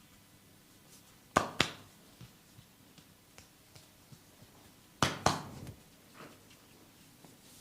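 Massaging hands striking the body: four sharp smacks in two quick pairs, about three and a half seconds apart, with faint taps between.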